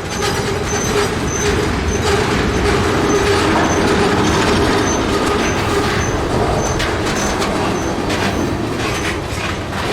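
Norfolk Southern freight train of ethanol tank cars rolling past at close range, a steady loud rumble of wheels on rail. A short high squeak repeats about twice a second throughout.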